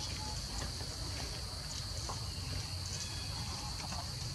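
Steady high-pitched drone of insects in the forest, with faint scattered rustles and ticks.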